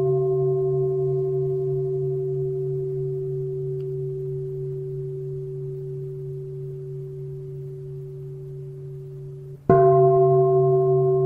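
Large bowl bell (singing bowl) ringing on after a strike, its low hum pulsing slowly as it fades. It is struck again near the end and rings out loud once more.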